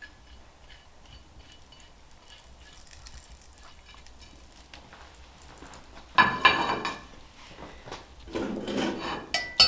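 A few quiet seconds, then clanks of cast-iron cookware: a ringing clank about six seconds in and a sharp metallic clink near the end, as the Dutch oven's lid is taken up with a lid lifter.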